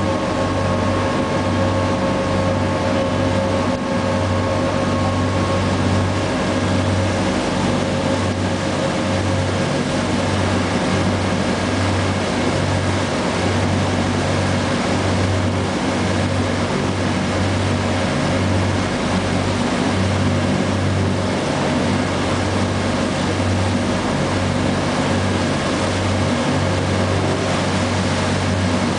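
Engine of a bateau-mouche river tour boat running steadily under way, a constant low drone with a steady hum, over the rushing wash of its wake.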